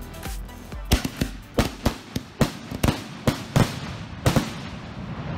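Golden Bear Pyro Bear fireworks firing: about a dozen sharp bangs in quick succession, roughly two to three a second, as shells burst overhead.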